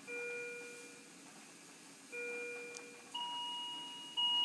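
Hospital bedside monitor alarm tones: a pitched chime that fades out sounds twice about two seconds apart, then a higher, steadier alarm beep takes over about three seconds in.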